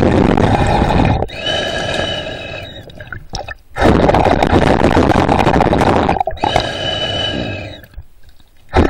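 Breathing of the swimmer holding the camera, heard underwater. Two cycles of a long, loud rough rush followed by a quieter breath with a whistling tone, each cycle ending in a brief pause.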